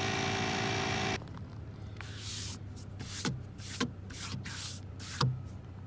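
A portable air compressor runs steadily, inflating a plugged truck tire, and stops abruptly about a second in. Then a hand rubs and wipes across a truck window: hissing wipe strokes with several short squeaks of skin on glass that drop in pitch.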